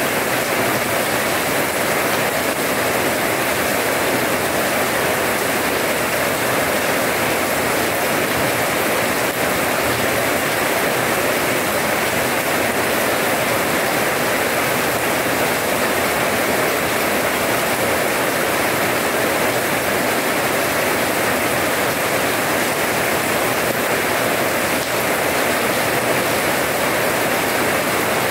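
Steady heavy rain falling on wet paving, a dense even hiss of splashing drops.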